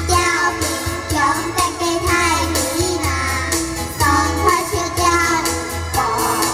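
Children singing a Hakka song in unison over instrumental accompaniment with a steady bass line.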